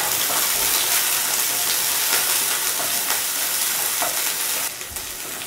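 Shallots and curry leaves sizzling in hot coconut oil in a nonstick pan, stirred with a wooden spatula. The sizzle quietens a little near the end.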